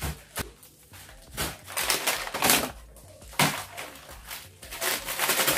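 Plastic grocery packaging crinkling and rustling in several short bursts as packs are handled and set down: a plastic-wrapped pack put on a dresser, then a plastic bag of powdered laundry soap picked up and turned over.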